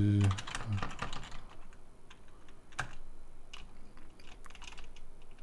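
Typing on a computer keyboard: irregular, quick key clicks as a command is entered.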